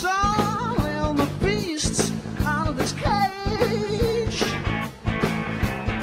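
Live rock band playing: a male voice singing over guitar and a drum kit keeping a steady beat.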